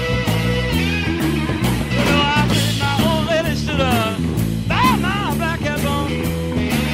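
Electric blues-rock instrumental passage: a lead electric guitar plays bent, sliding notes over a steady bass line and regular drum beats.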